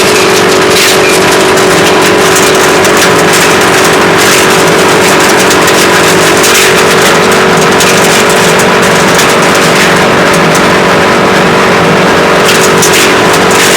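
WC 8 wood chipper running steadily under power, a constant mechanical hum with scattered sharp ticks and clicks over it.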